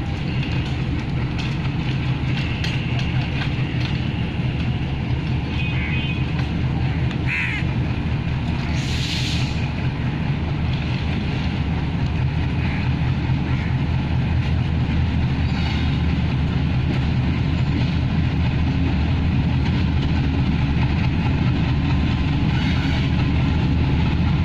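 Diesel locomotive engines running with a steady low drone, growing a little louder toward the end as a locomotive draws closer. Crows caw a few times midway.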